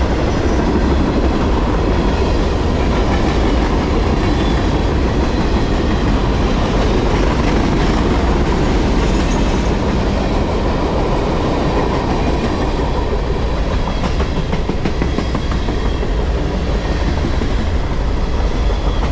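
Mixed freight cars of a CSX manifest train rolling steadily past at track speed: a loud, even rumble with the clatter of steel wheels on the rails.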